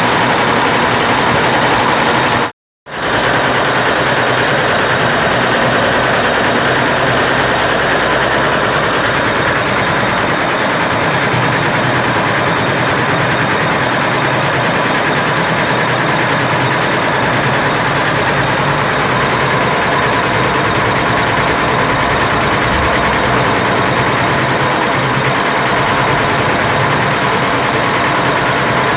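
Computerized embroidery machine stitching: a steady, fast mechanical rattle that cuts out for a moment about two and a half seconds in.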